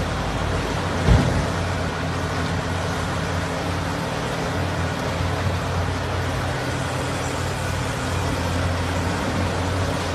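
Heavy machine's engine running steadily at an even pitch, with a single knock about a second in.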